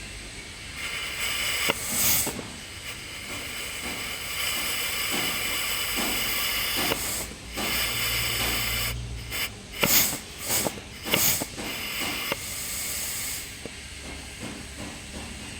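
Compressed air hissing from an air nozzle: a long blast with brief breaks, then several short sharp bursts, stopping a couple of seconds before the end.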